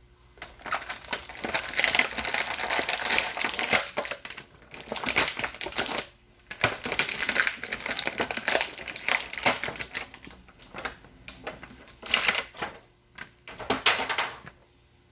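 Plastic toy packaging crinkling and crackling as it is handled and pulled apart, in several bursts with short pauses.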